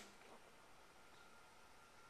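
Near silence: room tone, with a faint steady tone.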